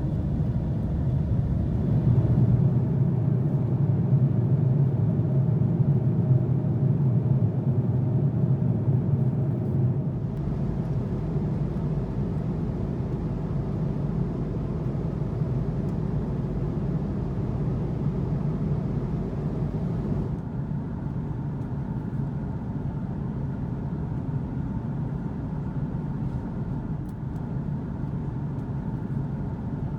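Steady jet airliner cabin noise, the low rumble of the Airbus A330-300's engines and airflow as heard from a passenger seat. It shifts a little in tone about ten seconds in and again about twenty seconds in.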